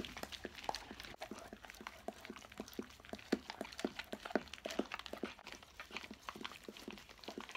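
Two dogs, a treeing walker coonhound and a coonhound–beagle mix, licking peanut butter off plastic zip-top bags: a quick, irregular run of wet tongue-clicks and slaps on the plastic, several a second.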